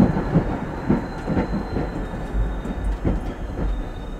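Oslo tram running along the track, heard from the driver's cab: a steady low rumble with irregular knocks and clatter from the wheels on the rails, and a faint high steady whine.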